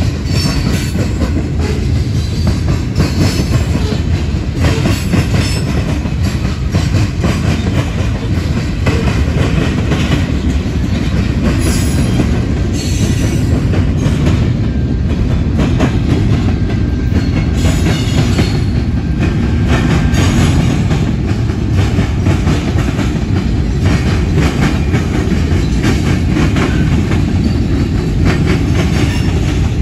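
A mixed freight train's cars rolling steadily past at close range: a loud low rumble with a constant rapid clatter of wheels over the rail joints.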